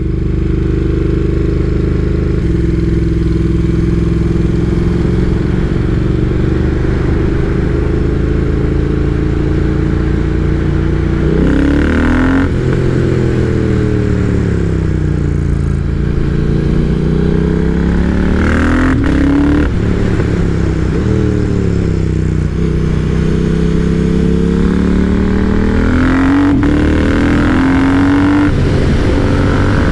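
Triumph Speed Twin's parallel-twin engine pulling a motorcycle along, steady at first, then about ten seconds in the engine pitch starts falling and rising in long sweeps, with sudden jumps that sound like gear changes, as the bike slows and accelerates through a series of bends.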